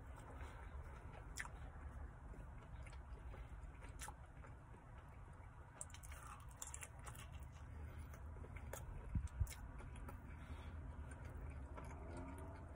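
A person chewing a mouthful of pepperoni pizza: faint wet smacking and small clicks, with two soft thumps about nine seconds in.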